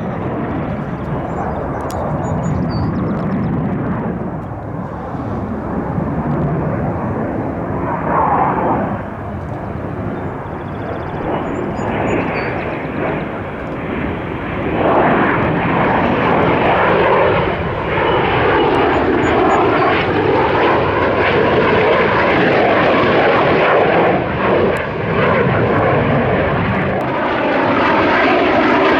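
Aircraft engines running as a fixed-wing aircraft flies past: a loud, continuous rush that gets louder about halfway through, with a sweeping, phasing whoosh in its tone after that.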